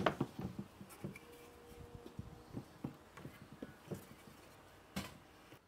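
Faint, irregular knocks and taps of wooden boards being handled and set into a wooden box on a workbench, with one sharper knock near the end.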